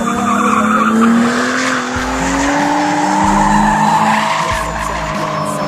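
Drift car sliding sideways with its engine held high in the revs and the tyres squealing steadily. The engine pitch climbs a little over the first few seconds, then eases slightly.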